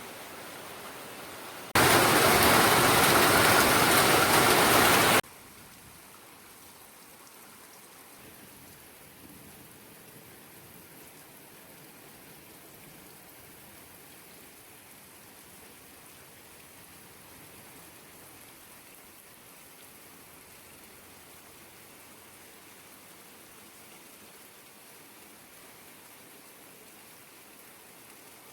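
Rain falling steadily. About two seconds in, a much louder rush of noise comes in abruptly and cuts off just as suddenly some three seconds later. After that the rain goes on more faintly.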